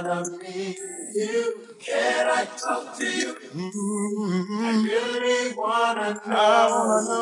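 A man singing unaccompanied, a cappella, in long held notes that slide between pitches.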